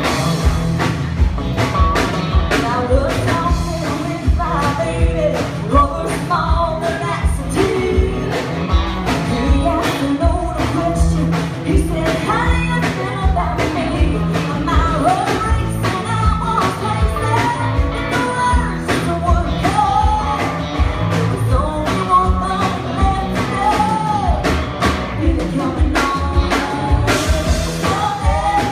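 Live band playing a song with women singing lead over a drum kit, electric bass and electric guitars, the drums keeping a steady beat.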